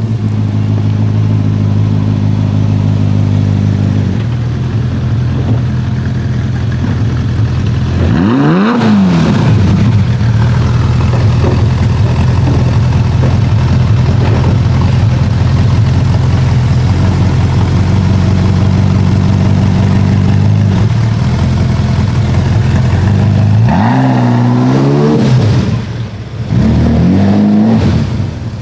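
Ferrari engine idling, blipped three times: a quick rise and fall in revs about eight seconds in, then two more near the end.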